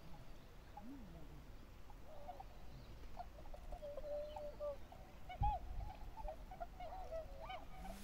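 Waterfowl calling: a steady run of short, overlapping honking calls, with one low thump about halfway through.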